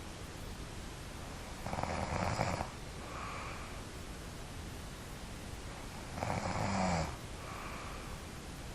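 A person snoring in their sleep: two loud snores, each just under a second long, about four and a half seconds apart, each followed by a softer breath.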